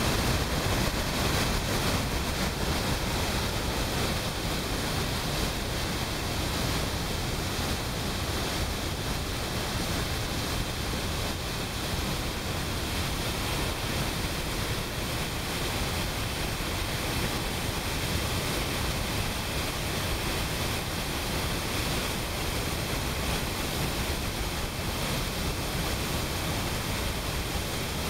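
Steady, heavy rush of floodwater blasting out of the North Hartland Dam's outlet into the tailrace, the flood-control dam draining strong at high release.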